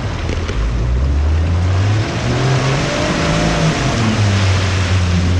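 Off-road truck engine revving, rising in pitch about two seconds in and easing off again, over a loud, steady rushing noise.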